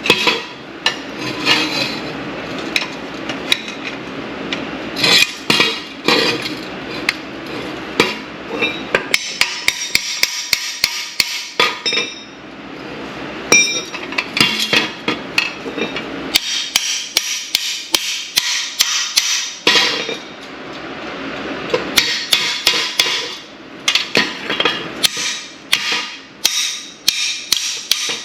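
Rapid hammer blows on metal, several a second, in runs broken by short pauses, each strike with a short metallic ring. The blows come while the old AC compressor is being worked loose from under the truck.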